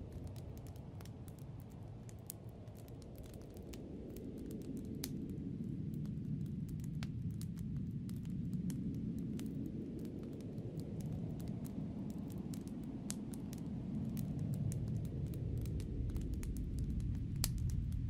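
Snowstorm wind heard as a low, deep rush that swells and eases in slow gusts, growing louder toward the end, with scattered sharp crackles and ticks throughout.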